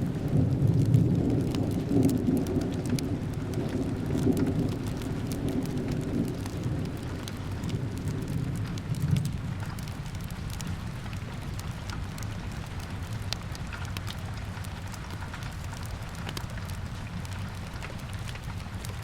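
Steady rain with a low rumble of thunder that rolls away and dies out about halfway through. Scattered sharp clicks run throughout.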